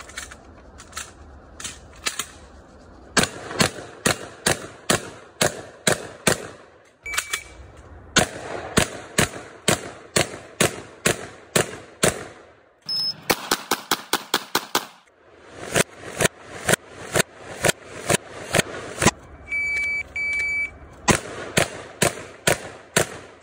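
Shotgun firing dozens of rapid shots in quick strings at steel targets, with brief pauses between strings. Two short electronic beeps come about 20 seconds in.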